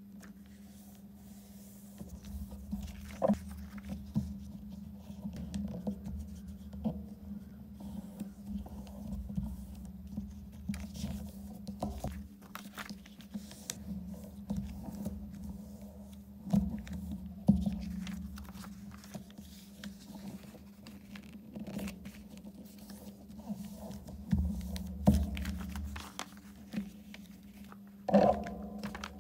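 Paper being handled and folded by hand: irregular rustling, scraping and light taps of the sheets against the tabletop, a little louder a few times, over a steady low hum.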